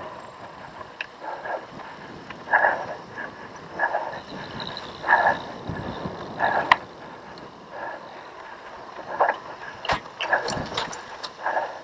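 A cyclocross rider breathing hard and rhythmically, about one heavy breath every second and a half. The bicycle gives a few sharp rattles and knocks over the rough grass in the second half.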